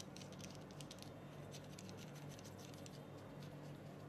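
Faint, quick metallic ticks and scratches from the threaded metal fitting on top of an eGO-type e-cigarette battery as fingers twist it, over a low steady hum.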